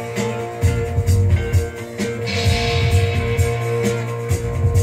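Guitar music playing back from a cassette on a Sankyo STD-1800 stereo cassette deck.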